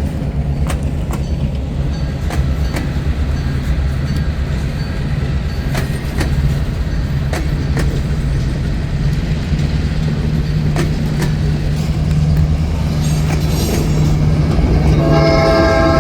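Diesel train locomotive running with a steady low engine rumble and occasional clicks from the wheels. Near the end its horn starts blowing.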